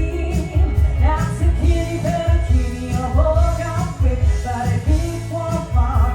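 Loud stage music with a singing voice over a steady, pulsing bass beat.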